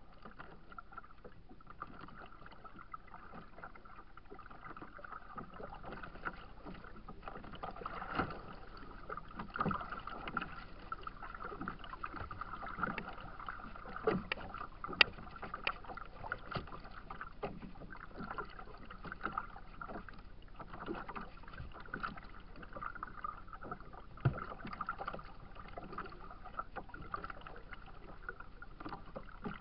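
Choppy lake water slapping and splashing against a kayak's bow, irregular sharp slaps over a steady wash of waves.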